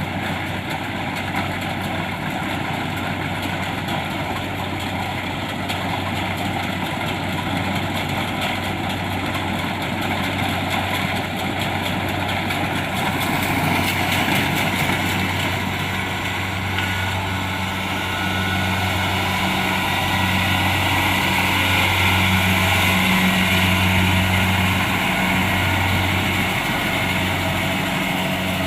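Kubota DC-70 Plus combine harvester's diesel engine running steadily, growing louder from about halfway through.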